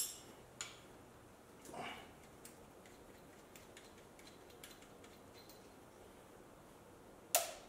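Faint clicks and handling noises from hand work on a 2JZ engine's turbo and manifold plumbing, with a short rustle about two seconds in and one sharp metallic clink near the end.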